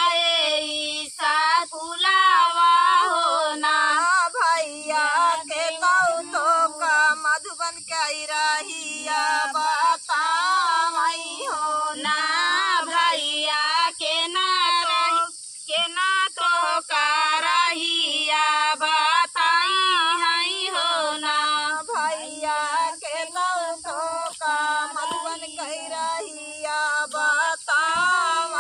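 A woman singing a dehati rice-transplanting folk song (dhaan ropai kajari), in a long wavering melodic line with a brief pause about halfway through.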